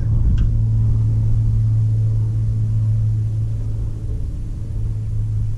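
Diesel engine of a Kobelco SK250 LC excavator running at a steady low drone, easing off slightly about four seconds in.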